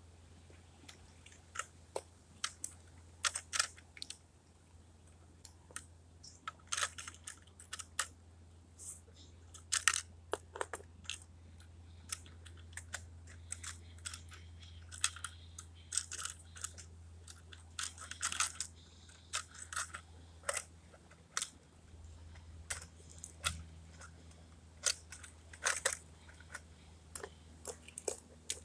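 Irregular sharp clicks and clacks of a First Gear model rear-loader garbage truck being handled, as small plastic toy carts are hooked onto its rear tipper and knocked against it. A steady low hum runs underneath.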